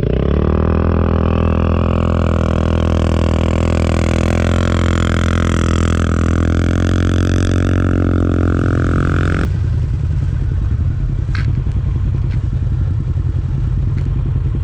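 ATV engine running steadily under throttle. About nine and a half seconds in, the higher part of the sound drops out abruptly, leaving a lower engine drone.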